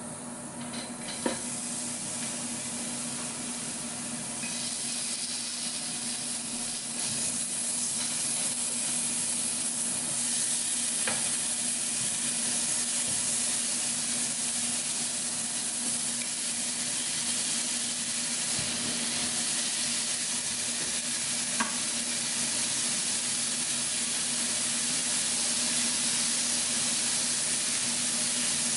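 Thin beef slices, garlic, onion and mushrooms sizzling on a hot round tabletop grill plate, the sizzle growing louder over the first several seconds as more meat is laid on, then steady. A steady low hum lies underneath, and two sharp clicks come about a second in and about two-thirds of the way through.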